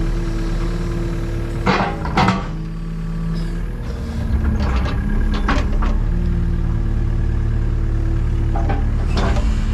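Takeuchi TB285 compact excavator's diesel engine running under hydraulic load, getting louder about four and a half seconds in, with a few sharp knocks as it works the rip rap.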